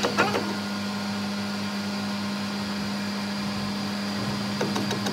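Metal lathe running with a steady hum as its cutting tool machines the weld-built-up end of a shaft, with a couple of brief sharp clicks.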